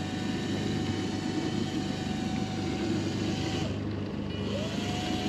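An electric fishing reel's spool whining steadily as the line pays out in freespool toward the bottom. The whine stops a little before four seconds in, then rises again and holds near the end, over the steady low running of a boat engine.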